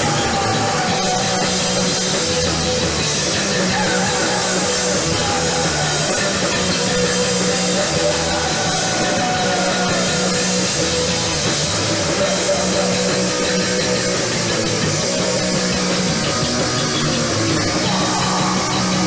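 A rock band playing loud and steady, with electric guitar and drum kit.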